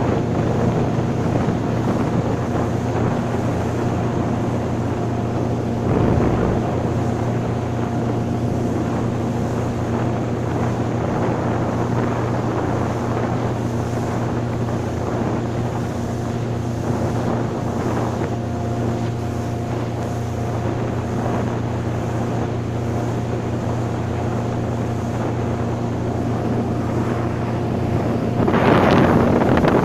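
Motorboat engine running steadily at speed, with wind blowing hard on the microphone. The wind noise surges louder near the end.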